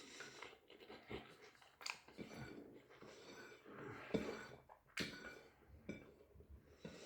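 Person chewing a mouthful of doner kebab: faint, irregular mouth noises with a few sharper clicks and crunches.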